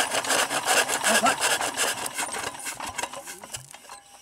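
Petter diesel engine turning over on the hand crank without firing: a fast, even rasping chuff on every stroke that slows and fades out near the end. It will not catch because of rainwater in its cylinder head.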